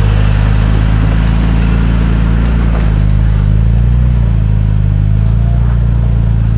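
Toyota Tacoma pickup's engine running at low, steady revs under load as the truck crawls up a steep rock ledge.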